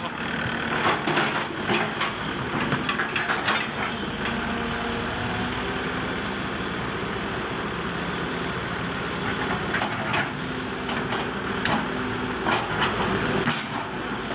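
Tracked hydraulic excavator's diesel engine running steadily as the bucket works, with scattered knocks as the steel bucket handles a rubber tyre on concrete, several in the first few seconds and more near the end.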